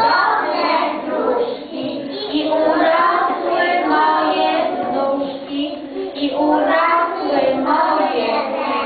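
A group of preschool children singing a song together, with a woman's voice singing along and leading them.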